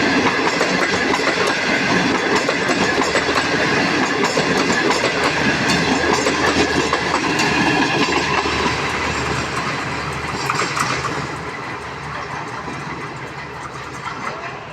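Diesel-electric locomotive and its train running loud on the rails, with wheels clattering over the rail joints. The sound dies away over the last few seconds as the train moves off.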